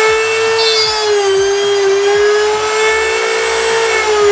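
Table-mounted router running at full speed with a steady high whine, its pitch dipping slightly about a second in as the bit cuts a small wooden workpiece held in a fixture. Near the end the pitch begins to drop.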